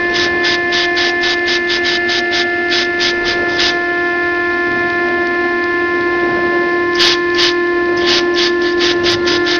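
Woodworking CNC router spindle running with a steady high whine, overlaid by rhythmic hissing bursts about four a second that pause for a few seconds mid-way and then resume.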